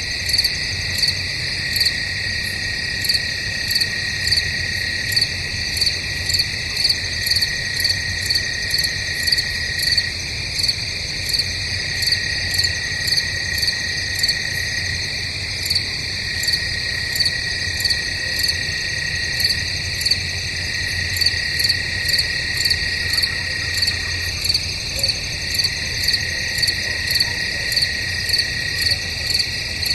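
Crickets chirping: a steady high trill that breaks off briefly every few seconds, layered with a sharper pulsing chirp that repeats a little more than once a second. A faint low hum sits beneath.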